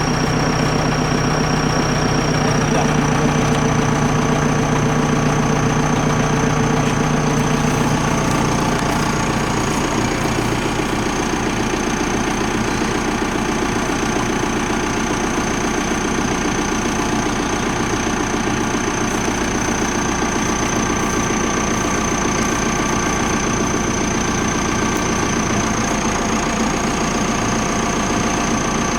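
An engine running steadily at idle, with a thin high whine above it. Its low hum changes slightly about eight seconds in.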